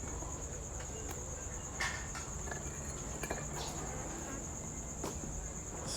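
A cricket trilling steadily on one high pitch, with a low steady hum beneath and a few faint clicks.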